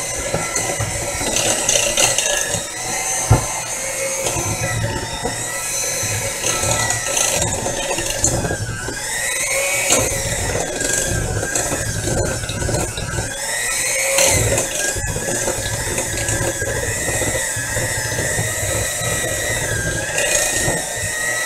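Electric mixer beating cake batter, its motor running steadily with a whine that rises and falls slightly in pitch.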